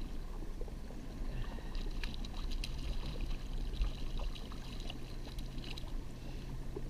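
Honda outboard motor running steadily at trolling speed with a low hum, while water splashes and spatters as a hooked cutthroat trout thrashes at the surface.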